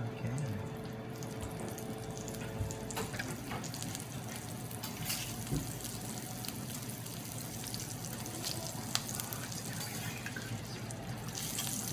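Water and shrimp sizzling on a hot teppanyaki iron griddle, a steady hiss, with a few light clicks of a metal spatula on the plate.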